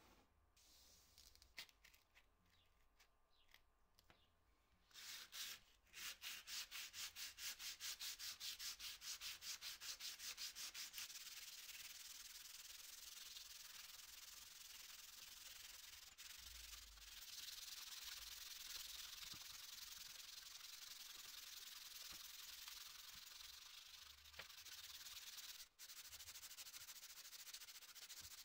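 Sandpaper rubbing on the housing of an old Solingen pocket knife. After a few near-quiet seconds come even back-and-forth strokes, about four a second, and then a steady scratchy hiss.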